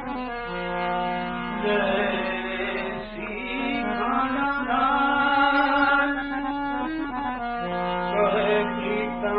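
Devotional bhajan music: a harmonium playing a melody of long held notes, heard on an old recording that sounds dull and lacks treble, over a steady low mains hum.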